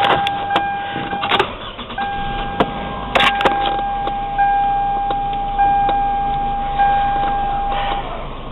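Inside a 2003 Toyota Camry's cabin as the car is switched on to test the A/C: a steady high electronic warning tone sounds, breaks off briefly about a second in, and cuts off near the end. Under it there is a low hum, with a few clicks and knocks.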